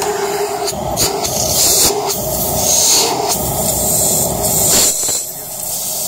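Rowenta bagless cyclonic canister vacuum cleaner running at full suction, a loud steady motor whine and rush of air, with a few brief surges and a slight dip about five seconds in. It is running normally with its suction restored, after a walnut that had jammed in its air channel and choked the airflow was removed.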